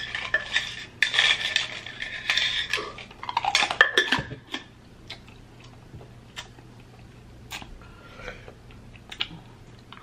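Clinks, clicks and scrapes of a clear lid and a straw being fitted to a stainless-steel insulated tumbler, busy for the first four seconds or so, then only a few faint scattered clicks.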